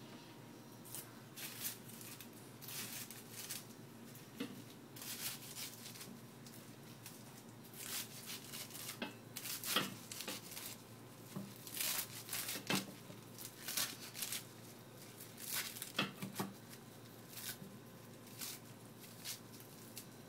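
Kitchen knife slicing through handfuls of fresh spinach held in the hand, an irregular run of short crisp cuts.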